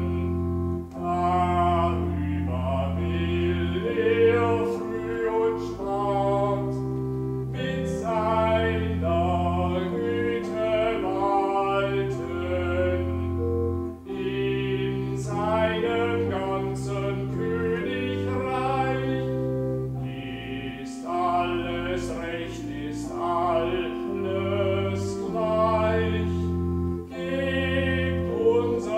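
Church organ playing held chords under a singing voice in a hymn, the sung line breaking briefly between phrases about every six or seven seconds.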